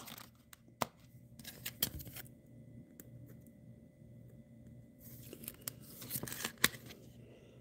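Trading cards being handled against clear plastic card sleeves: faint rustling and sliding, with a few light clicks.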